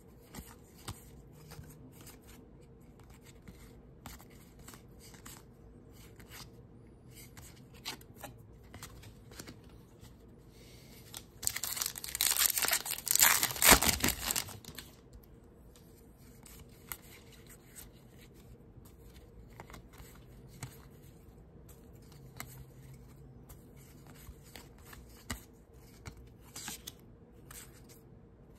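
Topps baseball card pack wrapper being torn open, a loud crinkling tear lasting about three seconds near the middle. Around it, the soft slides and small clicks of trading cards being flipped one by one in the hand.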